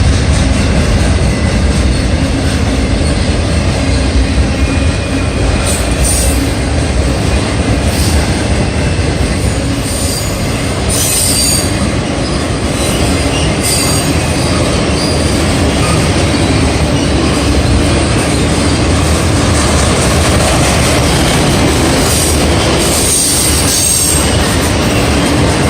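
Freight train cars rolling past close by: a steady rumble of steel wheels on rail, with brief high-pitched wheel squeals several times.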